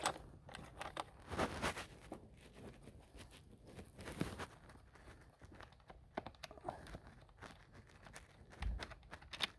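Faint rustling and scattered light clicks of clothing and gear being handled.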